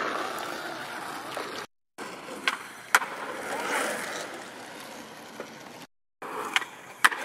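Skateboard wheels rolling over asphalt, with a few sharp clacks of the board. The sound is twice broken by a short gap of dead silence.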